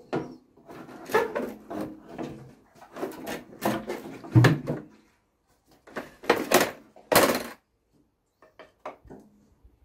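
A wooden prop stick knocking and scraping against a motorcycle's fuel tank and frame as the tank is lifted and propped open: a string of irregular knocks and rattles, with a heavy clunk about four seconds in and a sharp knock near seven seconds.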